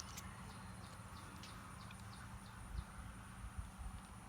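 Faint outdoor background: small birds chirping in short, repeated calls over a steady thin high tone, with a few soft low thumps after the middle.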